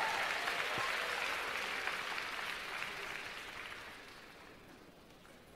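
Audience applauding, the applause dying away over about four seconds.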